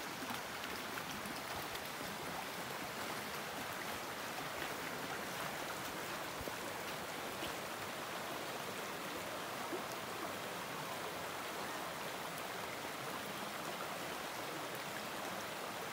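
Creek running after rain: a steady, even rush of flowing water.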